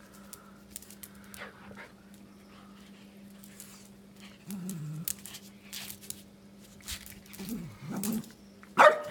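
Pomeranian making low, short whining grumbles, one about halfway through and more toward the end, building to a much louder bark just before the end, over faint clicks.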